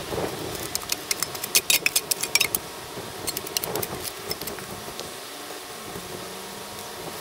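Steel spade cutting and scraping into soil and turf around a flat grave marker: a quick run of sharp scrapes and clicks, then a few more a little later. Near the end a faint engine hum rises and falls in pitch.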